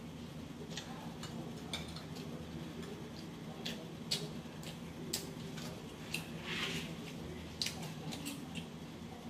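A dog's nails tapping on the floor: light, irregular clicks, roughly two a second. A brief soft rustle about six and a half seconds in.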